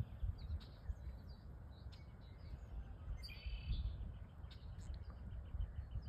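Birds chirping faintly, with one louder call just after three seconds in and a quick run of short chips near the end, over a low wind rumble on the microphone.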